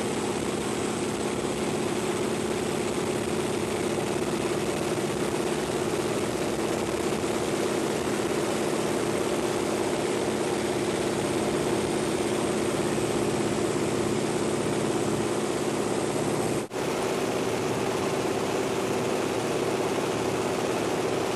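AT-6 Texan trainer's nine-cylinder radial engine running steadily at an unchanging pitch, with a brief dropout about three-quarters of the way through.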